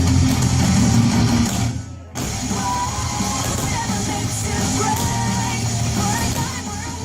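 Rock music with singing, which drops out briefly about two seconds in and then comes back in.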